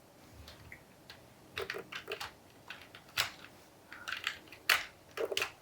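Plastic LEGO pieces clicking and rattling as they are handled and pressed against each other, a scatter of short sharp clicks, some in quick clusters, with quiet gaps between.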